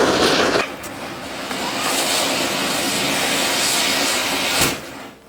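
Ground chakri spinner firework with an anaar fountain firework mounted on it, hissing loudly as it burns and sprays sparks. The hiss dips under a second in, builds again, and cuts off abruptly near the end with a short crack.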